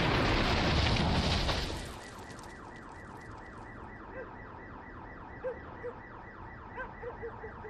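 The tail of an explosion's blast, dying away after about a second and a half, then a car alarm set off by it, sounding in fast repeated sweeps.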